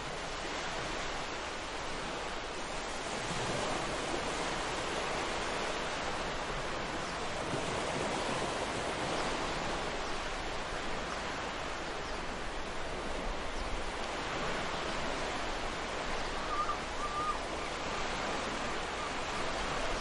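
Ocean surf washing onto a beach: a continuous hiss of breaking waves that swells and eases slowly, with a brief faint chirp about three-quarters of the way through.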